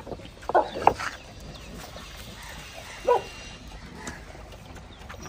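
Dogs barking: two short barks close together about half a second in, and another about three seconds in.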